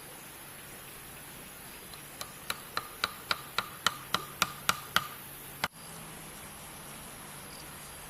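A quick run of about ten sharp blows on bamboo, each with a short hollow ring, about three a second, like a blade or hammer working a bamboo pole. It stops, and one last sharp knock cuts off abruptly.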